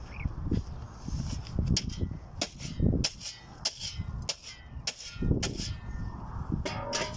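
Long-handled shovel chopping down into packed sand and gravel, a series of sharp, irregular strikes with a short scrape of the blade near the end.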